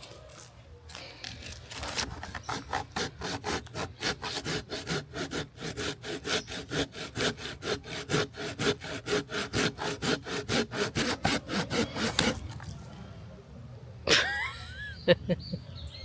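Small hand saw cutting through a hard wooden log in quick, even back-and-forth strokes, about four a second. The sawing starts about two seconds in and stops about twelve seconds in.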